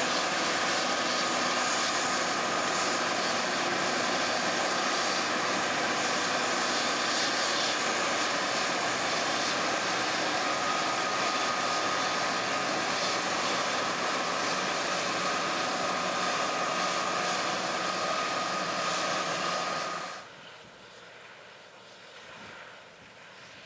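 John Deere S690 combine harvester running under load while cutting and threshing wheat: a loud, dense, steady mechanical din with a steady whine over it. About twenty seconds in it drops suddenly to a much quieter, distant drone.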